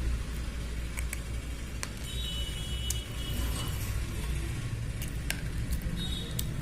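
Slate pencils being bitten and chewed: sharp, irregular crunches and clicks, over a steady low rumble.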